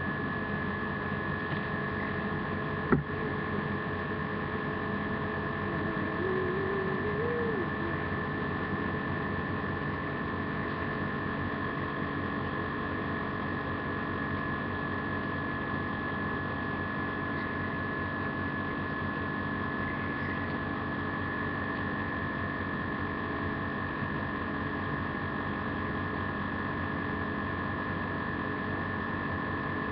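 Steady electrical hum made of several constant tones over a low hiss, with a single sharp click about three seconds in.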